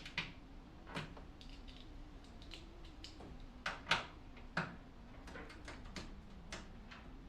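Scattered clicks and knocks of hand tools working on a microwave's metal casing and parts during a teardown, loudest in a quick cluster about four seconds in, over a faint steady hum.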